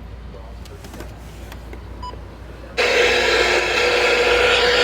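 Radio static: a loud, even hiss with a steady tone in it cuts in suddenly about three seconds in, as a receiver is tuned off a station. Before that there is only a faint low hum.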